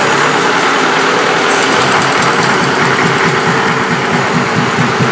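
Stationary gasoline engine running as its shifted gear engages and starts the foghorn's air compressor; a brief click comes about a second and a half in, and then a regular low chugging sets in and grows as the compressor begins pumping air for the foghorn's storage tanks.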